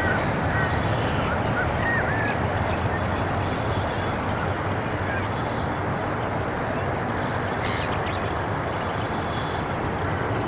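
Fishing reel drag buzzing in repeated spurts as a hooked fish pulls line off against a loose drag, over a steady rushing noise. A few faint bird chirps in the first couple of seconds.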